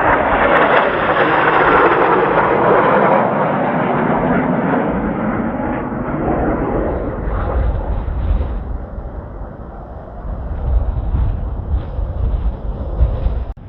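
Kawasaki T-4 jet aircraft passing by, a loud jet roar strongest in the first few seconds that then fades away. In the second half strong wind buffets the microphone with a low rumble.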